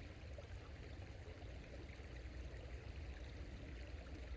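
Faint, steady running water of a small creek.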